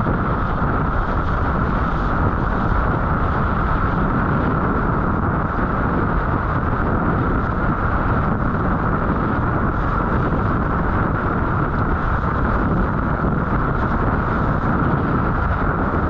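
Heavy wind buffeting the microphone, mixed with rushing water from a windsurf board sailing in a storm wind. The noise is loud and steady, with no breaks.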